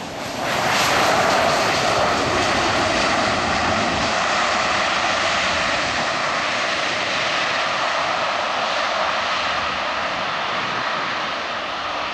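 Boeing 737-300's CFM56-3 jet engines running at high power, a steady loud jet noise with a hiss. It gets much louder about half a second in, then eases off slowly.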